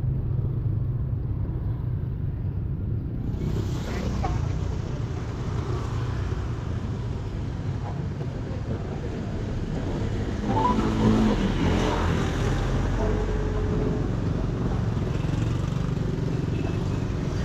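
Motorbike riding in street traffic: a steady low rumble of engine and road noise with wind on the microphone. A brief pitched sound comes a little past halfway.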